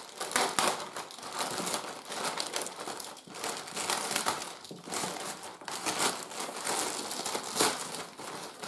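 Grey plastic poly mailer bag crinkling and crackling as it is cut open and pulled about by hand.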